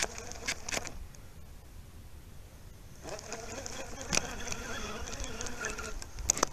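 Fishing reel being cranked, a steady whirring buzz starting about three seconds in. A few sharp clicks and rubbing from a hand handling the camera come at the start and again near the end.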